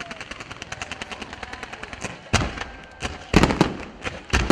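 Fireworks display: a rapid, even string of launch pops from ground-fired fans of comets, about seven a second, then several louder bangs from a little past two seconds in.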